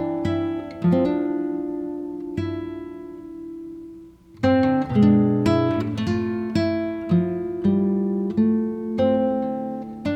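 Acoustic guitar background music: plucked notes and chords that ring and fade. There is a short lull about four seconds in before the playing picks up again.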